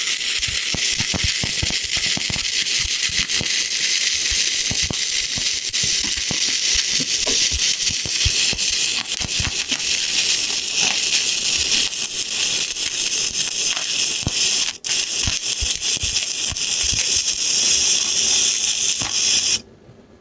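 Wire-feed welder arc crackling and sizzling steadily while welding thin exhaust tubing, which the welder keeps blowing through. The arc breaks off for an instant about three-quarters through and stops abruptly just before the end.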